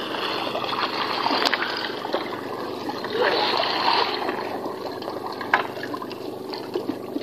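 Seawater splashing and trickling off a fish-corral net as it is hauled up by hand, louder for a moment about three seconds in, with two sharp knocks.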